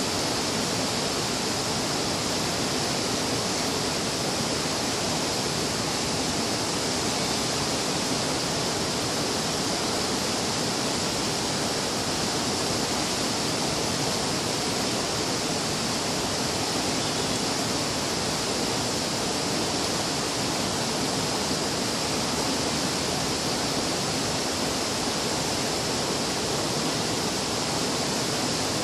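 Steady, unbroken rushing noise with no other sounds standing out of it.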